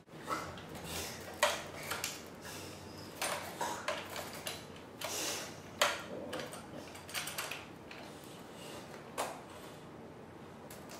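Irregular light taps, clicks and knocks from a hand working a tablet held on a wheelchair-mounted arm, fading out near the end.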